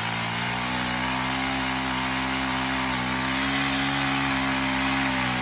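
Chainsaw running at a steady high speed, its pitch wavering slightly as it works on a branch.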